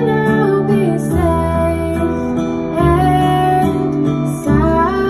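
Woman singing a slow ballad into a microphone, amplified through PA speakers, over acoustic guitar accompaniment. Long held notes, with the chords changing about every one and a half seconds.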